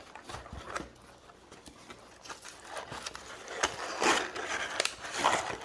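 Cardboard shipping box being torn open by hand, with scattered taps and rustles of packaging. The loudest tearing comes about four seconds in and again near the end.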